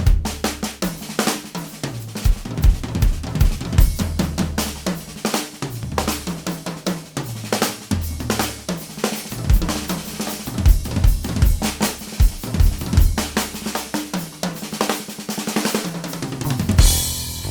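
Drum-heavy music played back: a busy drum kit part with kick, snare, hi-hats and cymbals over a bass line, closing with a cymbal crash near the end.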